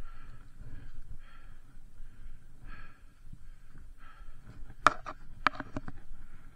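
A cyclist's heavy, rhythmic breathing over the low rumble of mountain-bike tyres on the trail, with a quick cluster of sharp knocks and rattles from the bike about five seconds in.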